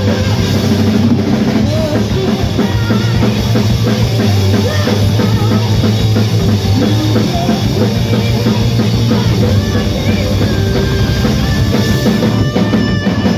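Live hard rock band playing loud: pounding drum kit with bass drum, electric bass and distorted electric guitar.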